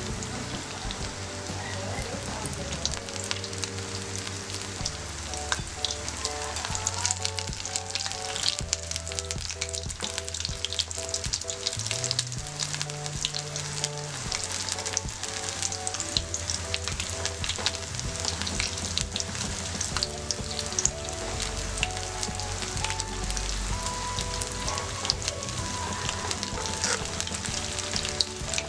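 Breadcrumb-coated pineapple pieces deep-frying in hot oil: a steady, dense crackling sizzle.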